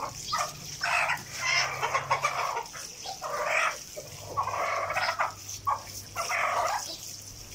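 A broody hen clucking and squawking repeatedly, about once a second, while being doused with water from a garden hose, over a steady hiss of running water. The hen is being wetted to break her broodiness.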